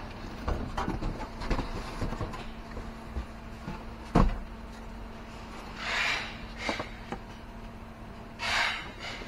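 Packing being handled as a mini refrigerator is unboxed: the cardboard box knocks and rubs as it is lifted off, with one sharp thump about four seconds in. Then come a few short scraping rubs as the styrofoam packing is pulled from the fridge's top. A faint steady low hum runs underneath.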